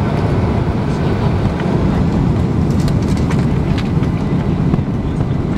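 Cabin noise of a Boeing 767-200 rolling along the runway: a loud, steady rumble from the engines and landing gear, with a few light rattling clicks.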